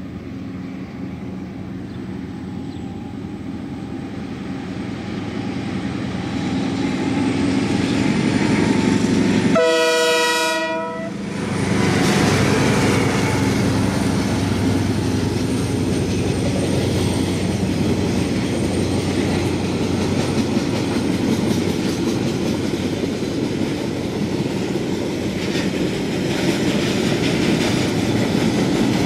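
Diesel-hauled freight train approaching and growing louder, with one horn blast of about a second and a half near the middle, then the wagons rolling past with a steady rumble and wheels clacking over the rail joints.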